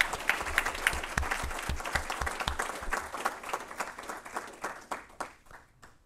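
Audience applauding, the clapping thinning out and dying away over about five seconds.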